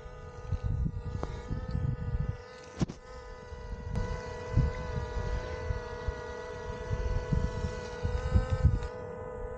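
Quadcopter drone hovering overhead: a steady, slightly wavering whine from its propellers, with wind gusting on the microphone underneath.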